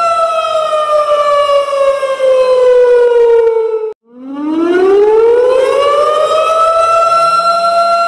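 Air-raid style siren in a custom hockey goal horn track. The pitch glides steadily down for about three and a half seconds and cuts out halfway through. It then winds back up and settles on a steady high tone near the end.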